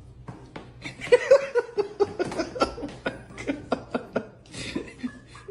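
A person laughing softly in short, broken bursts.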